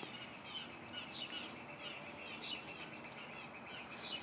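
Birds chirping: a string of short, high chirps over a faint steady background of more distant bird calls.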